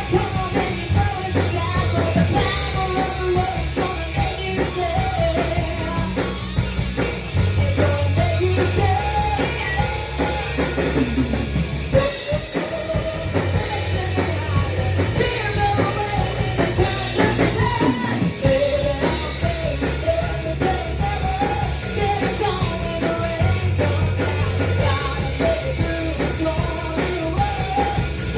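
A band rehearsing a song live: a singer's voice over a drum kit and held low bass notes.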